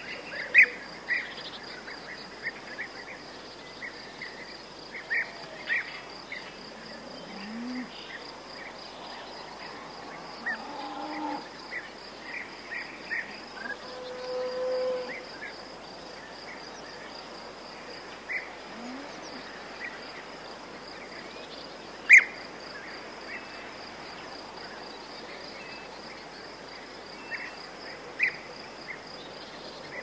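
Outdoor ambience of crickets chirring steadily in a fine pulsing rhythm, with scattered short bird chirps. A few faint low calls come and go, and two sharp clicks stand out, the loudest about two-thirds of the way through.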